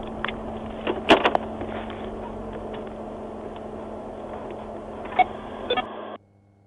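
Engine and road noise inside a moving police cruiser, with a steady hum and a few sharp clicks about a second in and again near the end. The sound cuts off suddenly about six seconds in.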